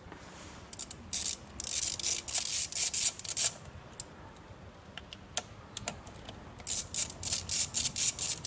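Socket ratchet clicking as it undoes the M6 bolts of the throttle cable bracket on the throttle body. There are two runs of rapid clicks, one about a second in and one near the end, with a few single clicks between.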